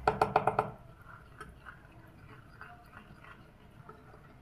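A spoon stirring a wet paste of ground coffee, tomato juice and cornstarch in a small terracotta bowl: a quick run of clinks against the bowl in the first second, then quieter scraping and occasional taps.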